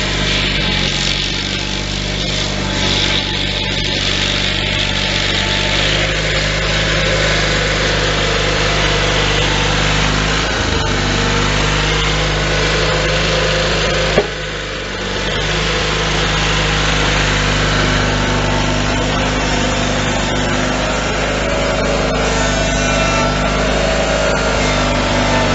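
Simplicity 20 GTH garden tractor engine running at a steady speed while the tractor pushes snow with its front plow blade. A single sharp click breaks in about fourteen seconds in.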